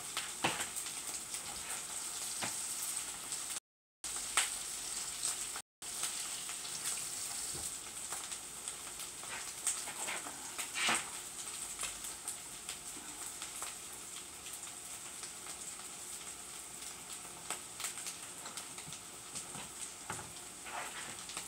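Corned beef hash frying in its own fat in a skillet: a steady sizzle with scattered pops and crackles, easing slightly in the second half. The sound cuts out completely twice for a moment, about four and six seconds in.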